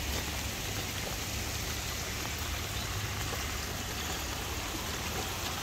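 Shallow floodwater running across a footpath and grass verge: a steady rushing wash of water.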